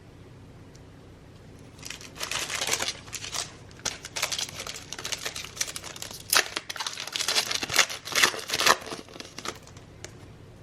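A trading-card pack's wrapper crinkling and tearing as it is ripped open and peeled back, irregular crackly rustling starting about two seconds in and going on for about seven seconds.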